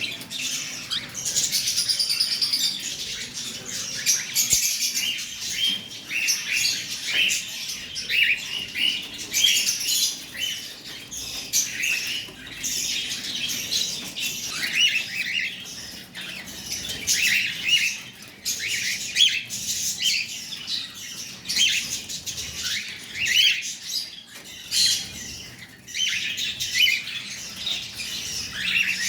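Caged pet birds chirping and chattering continuously in many short, high calls, with scattered sharp clicks among them.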